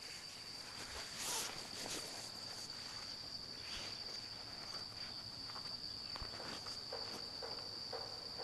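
An insect's steady high-pitched call, one unbroken tone, with faint rustles and light taps from canvas and netting being handled, the most noticeable about a second in.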